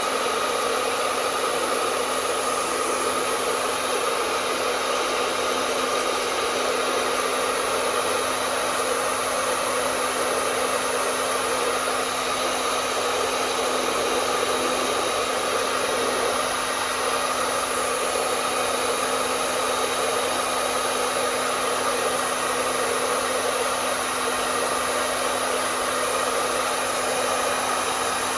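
Hair dryer running continuously, a steady airy blowing with a faint hum and no change in speed.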